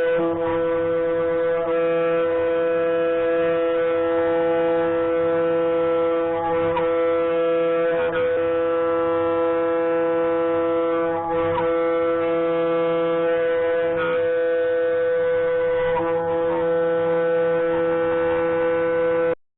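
Background music: a sustained droning chord of steady held tones, with faint swells now and then, cutting off abruptly just before the end.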